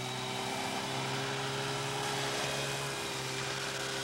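Small fishing boat's engine running steadily with a low hum, over the wash of the sea.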